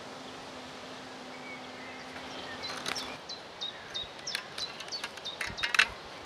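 Light wooden clicks and knocks as a bow drill spindle is handled, twisted into the bowstring and set into the fireboard notch, starting about halfway through and loudest near the end, over steady background noise with a faint steady hum in the first half.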